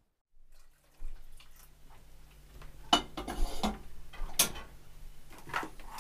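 Several sharp clinks and clatters of dishes and cutlery being handled, over a low steady hum.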